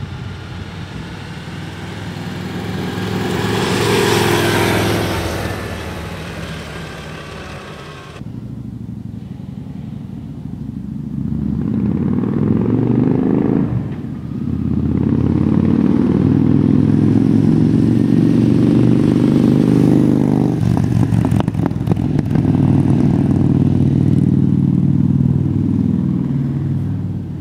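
A 2011 Victory Vision motorcycle's V-twin engine riding past on its stock exhaust, rising to a peak about four seconds in and then fading. After a cut at about eight seconds, the same bike on aftermarket Freedom Performance true-dual pipes approaches and passes, louder and longer, from about fourteen seconds to near the end.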